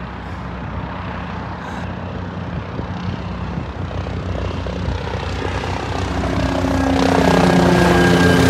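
Helicopter flying in and passing low overhead, its rotor and engine drone growing steadily louder, with a falling tone near the end as it comes over.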